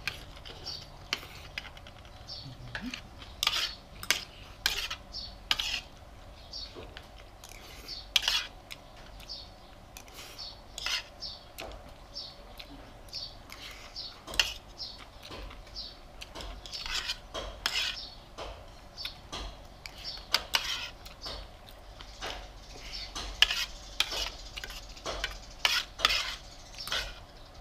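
Metal spoon and fork scraping and clinking against a ceramic plate as rice and stir-fry are pushed together and scooped up, in many short, irregular strokes.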